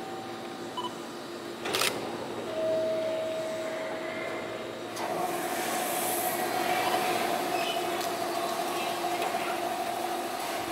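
205 series 3100 subseries electric train at a platform, its onboard equipment giving a steady hum. There is a short sharp burst about two seconds in. About halfway through, the running noise rises as the train starts to pull away.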